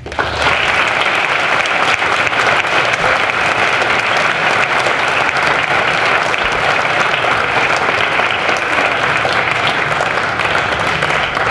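An audience applauding, many people clapping at once. It starts suddenly and holds steady throughout.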